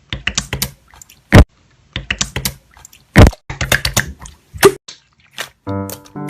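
Slime being squished and pressed by hand, giving clusters of sticky clicks and wet pops, two of them loud. Background music comes in near the end.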